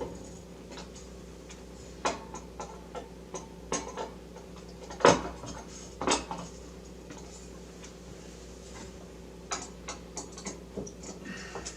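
Scattered metallic clinks and knocks from a hand tool and metal frame parts as the rail's fasteners are tightened. The loudest knock comes about five seconds in, over a steady low hum.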